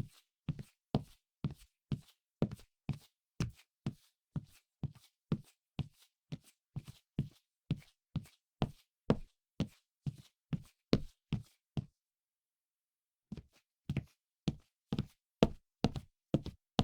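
Footsteps walking briskly at a steady pace of about two and a half steps a second. The steps stop for about a second and a half roughly three-quarters of the way through, then carry on.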